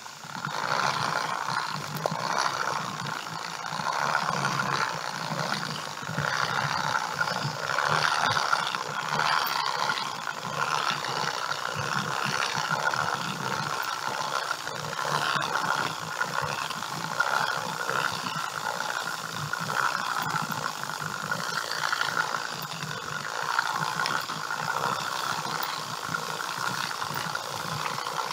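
Hand-cranked broadcast seeder being turned while walking, its gears whirring and rattling as it spreads seed. The sound is steady and swells and dips every second or two.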